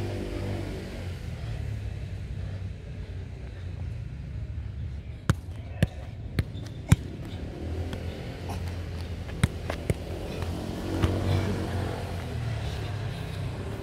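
A football struck by foot and knee while being juggled: a handful of sharp thuds of the ball, clustered about five to seven seconds in and again around ten seconds, the one near seven seconds the loudest. A low hum of passing vehicle engines runs underneath, swelling near the start and again about eleven seconds in.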